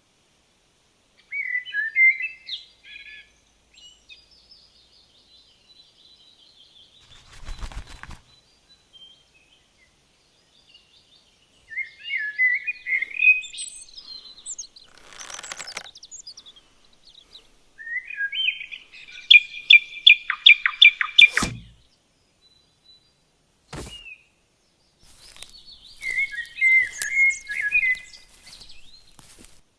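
Recorded forest ambience of songbirds singing in separate phrases, one of them a fast, even trill, broken by a few short sharp knocks.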